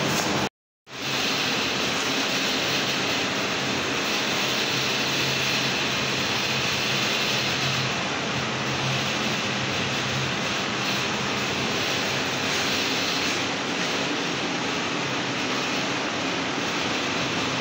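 Steady, even background noise with no clear pitch and a faint low hum under it. It drops out completely for a moment about half a second in.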